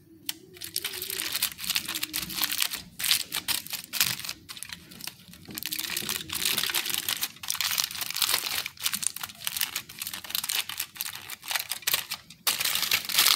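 Aluminium foil crinkling and crackling as hands fold and press it tight around a fish parcel, in irregular crackles with a few brief pauses.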